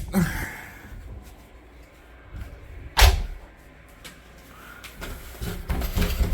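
A single sharp knock about three seconds in, over low rumbling handling noise, with a few smaller clicks near the end.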